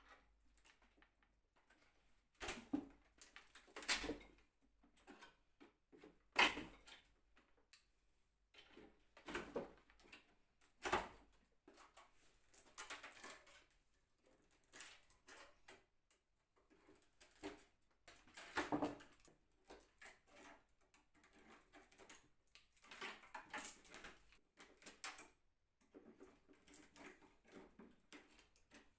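Irregular knocks, taps and short scraping noises of hand work on an old wooden cabinet, coming at uneven intervals with a few louder knocks among them.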